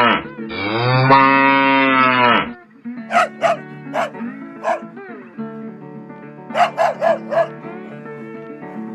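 A cow mooing once, a long low call, then a dog barking in two runs of four barks, over background music with guitar.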